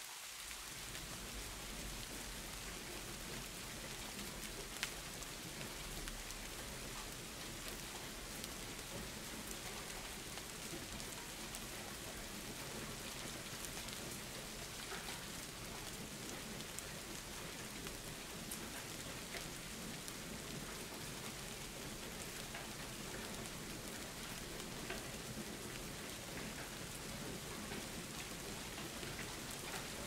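Steady rain, with scattered drops ticking through it and one sharper drop about five seconds in.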